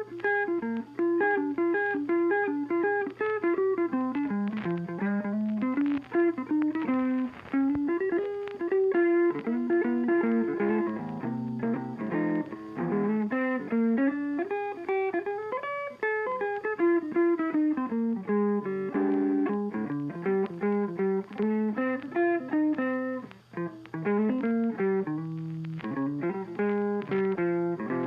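Background music: a guitar tune with quickly changing plucked notes over a steady bass line.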